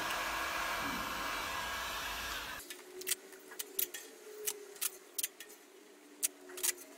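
Electric heat gun blowing hot air onto a steel chassis rail to warm and dry it, switched off abruptly two and a half seconds in. After that come scattered light clicks and taps while tape is pressed onto the rail.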